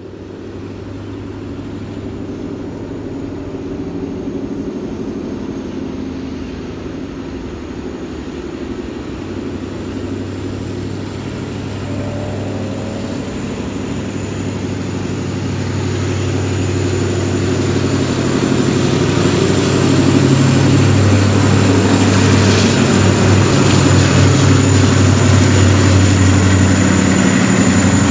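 KTM diesel locomotive hauling a freight train, its engine running with a steady low drone. The drone grows steadily louder over the first twenty seconds as the train approaches, then holds loud as it draws level.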